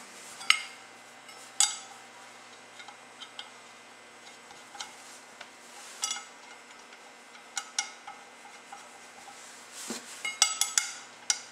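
Light metal clicks and clinks as screws are handled and set by hand into the helix of a Ski-Doo QRS driven clutch, metal tapping on the aluminium clutch. The clicks come singly a few seconds apart, with a quick run of them near the end.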